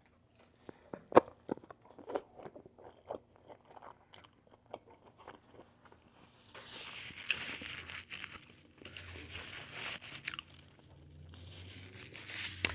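Close-miked chewing, with sharp crunches and wet mouth clicks. About six and a half seconds in, a hissy rustling starts and comes and goes in stretches.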